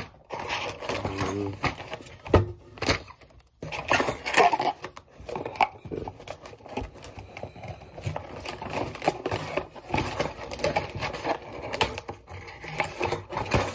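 Irregular rustling, clicks and knocks of a cardboard tackle box and its paper cards being rummaged through, close to the microphone.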